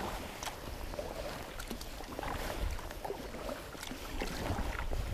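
Kayak paddle strokes on calm lake water: the blade dipping in, with drips and small splashes falling off it, over a low rumble.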